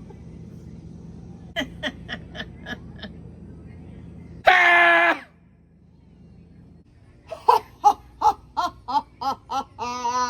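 A person's voice making non-word sounds: a quick run of short sounds, a loud held squeal about halfway through, then a rapid string of short pitched 'ha'-like sounds, like giggling, near the end.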